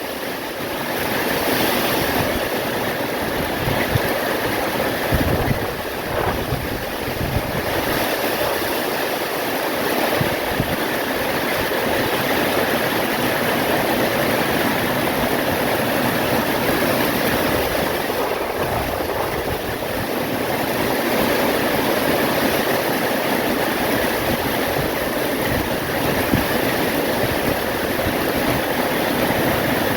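Heavy rain pouring down in a windy storm: a steady, dense hiss that swells and eases slightly.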